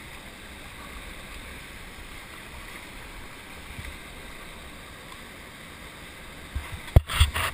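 Whitewater rapid rushing steadily, heard close from the water. Near the end, a few loud sharp knocks.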